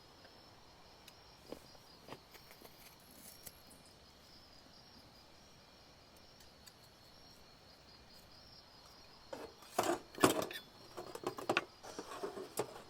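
Steady high insect chirring, crickets, with a few faint clicks; about nine seconds in, a run of loud knocks and clatter.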